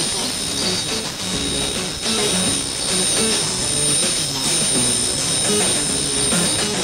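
Lo-fi sound collage on audiocassette: a steady rushing roar with thin, steady high whistling tones, and short low pitched notes shifting every fraction of a second underneath.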